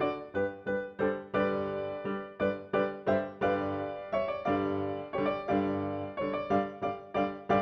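Background music: a piano-like keyboard playing a steady run of struck notes that each ring and fade.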